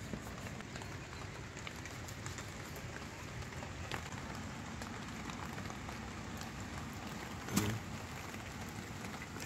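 Steady patter of rain, an even hiss full of small ticks. About three-quarters of the way through there is one brief, louder low sound.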